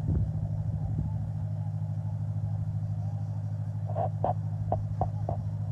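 A vehicle engine running with a steady low hum. About four seconds in comes a quick run of about six short, sharp clicks or knocks.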